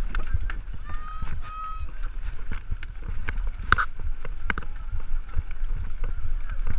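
Specialized Stumpjumper mountain bike rolling over bumpy grass, heard from a camera on its handlebars: many short rattles and knocks from the bike with a low wind rumble on the microphone. A few short high-pitched squeaks or calls come about a second in and again near four seconds.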